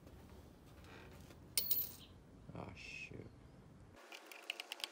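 Steel transmission gears and shafts of a Honda CT70 4-speed clinking against each other and the aluminium crankcase as the gear cluster is fitted into the case half. There is one sharp ringing clink about a second and a half in, softer knocks near three seconds, and a run of light clicks near the end.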